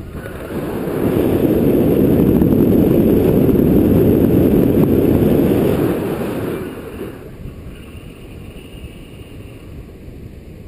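Wind rushing over an action camera's microphone in flight under a tandem paraglider, a low rumbling buffet. It swells about a second in, stays loud for about five seconds, then drops to a softer steady rush.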